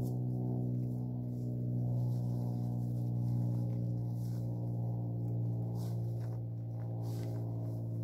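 Background ambient music: a steady, low, sustained drone with no beat.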